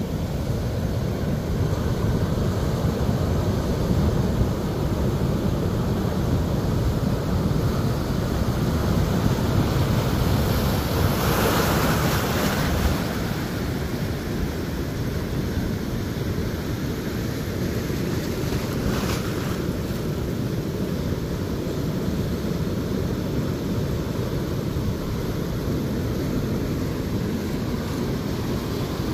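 Ocean surf washing and foaming over the sand, with a low rumble of wind on the microphone. A wave rushes in louder and brighter about eleven seconds in, and a smaller one comes near nineteen seconds.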